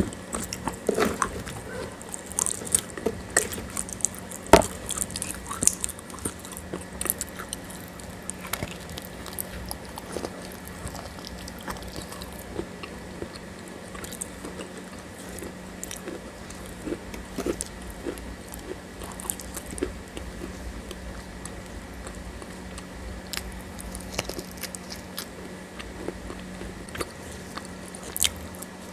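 Close-miked eating of a grey clay-like paste: fingers pinching lumps from the bowl and the mouth biting and chewing them, with many small sharp crunches and wet clicks, busiest in the first few seconds and again near the end. A faint steady hum runs underneath.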